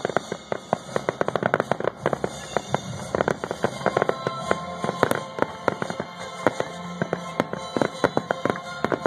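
Fireworks finale: aerial shells going off in a dense, continuous run of sharp bangs, several a second and often overlapping.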